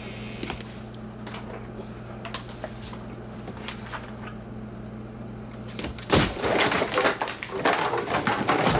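A steady low hum, then about six seconds in a sudden loud crash followed by a run of clattering and knocking, like things falling and breaking.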